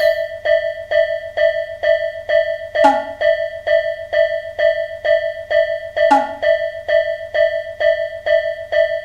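Japanese level-crossing warning bell (kan-kan) ringing steadily in an even electronic ding, a little over two strikes a second. Two short whooshes cut in, about three seconds and about six seconds in.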